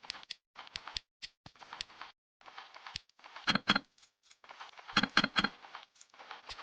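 Quick clicks and clatters of small plastic building bricks being handled and snapped together, in short edited bursts with abrupt silent gaps between them.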